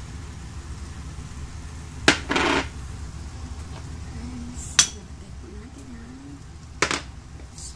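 Three sharp clinks of kitchenware against a frying pan, spaced about two seconds apart; the first is followed by a short scraping rustle. A steady low hum runs underneath.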